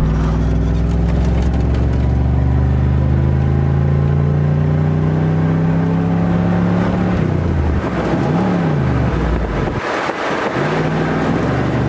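Chevrolet Camaro Z28's LT1 V8 heard from inside the cabin, pulling hard with the pitch rising steadily for about seven seconds. The revs then drop away, with a short rise and fall, and settle low as the car coasts out of gear. Near the end the engine climbs again.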